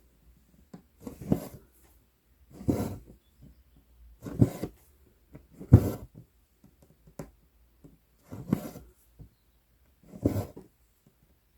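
Embroidery floss being drawn through 11-count Aida cloth, stitch after stitch: a short rasp about every one and a half seconds, six times.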